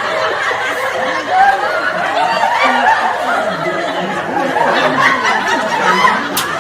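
Several people laughing, snickering and talking over one another.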